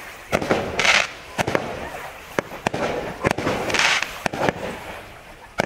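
Fireworks going off: a string of sharp bangs and pops, with two short spells of hissing crackle, about a second in and near four seconds.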